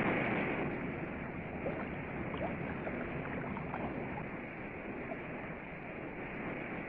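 Steady rush of white-water rapids on a big river.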